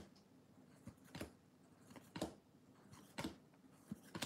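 Faint soft swishes and taps of trading cards being slid one at a time off a hand-held stack, about one a second.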